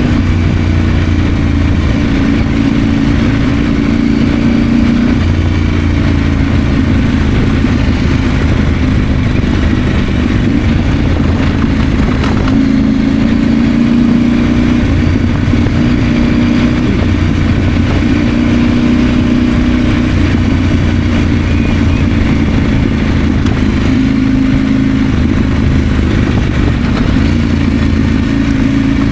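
KTM 890 Adventure's 889 cc parallel-twin engine running under way at fairly steady revs, its note stepping slightly up and down a few times, over a steady hiss.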